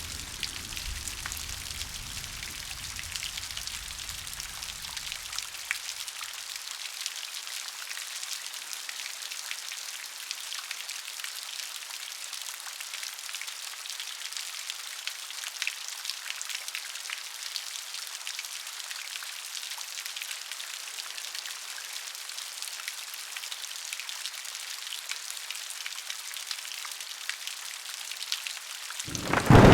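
Steady rain with many separate drops tapping on a surface, a dense even patter. A low background layer fades out about six seconds in, and a loud thunderclap breaks in at the very end.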